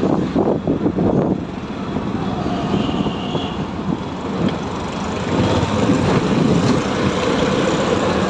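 Engine and road noise heard from inside a moving auto-rickshaw, rougher for the first second or so and then steadier, with street traffic close by.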